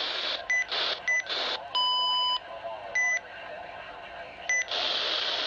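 Radio receiver static hiss with four short electronic beeps and one longer, lower beep about two seconds in. The hiss drops back in the middle and returns loud near the end.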